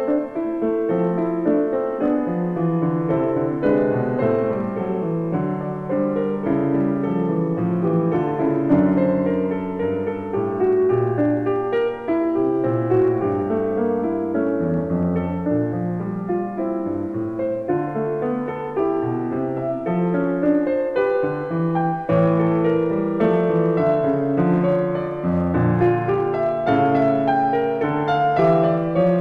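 Background piano music: a continuous piece with a low bass line under a melody.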